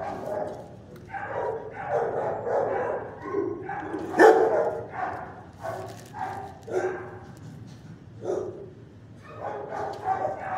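Shelter dogs in their kennels barking over and over, about two barks a second, with an especially loud bark about four seconds in and a short lull shortly before the end.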